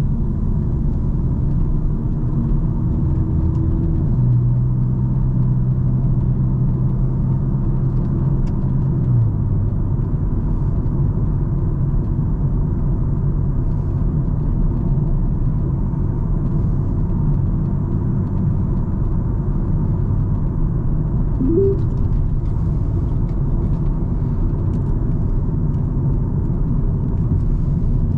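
A car being driven, with its engine and tyres making a steady low rumble. The engine's hum drops in pitch about nine seconds in. A brief short rising chirp comes about two-thirds of the way through.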